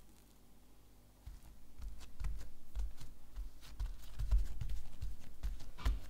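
Hands pressing and patting a folded sheet of bread dough flat on a silicone baking mat: a run of soft thumps and taps starting about a second in, with a sharper tap near the end.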